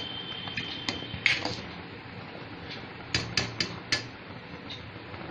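Metal spoon stirring milk in a stainless steel pot, clinking against the pot in a few sharp knocks, most of them close together between about three and four seconds in.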